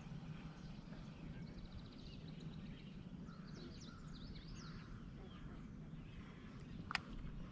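Faint songbird singing, a quick trill followed by several short chirps, over a steady low outdoor rumble, with one sharp click near the end.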